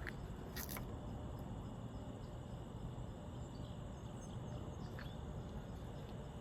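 Faint, steady outdoor ambience of insects trilling over a low rumble, with a couple of light clicks.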